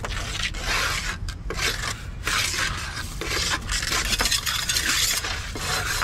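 Hand trowel scraping across wet concrete on top of a steel block mould in a series of uneven strokes, smoothing the block's surface level.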